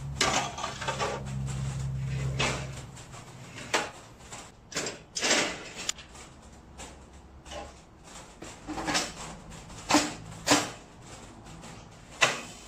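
Steel drawer and extension slides of a welding table being pulled out and pushed home: sliding metal rasps and a run of sharp metallic clunks and clacks.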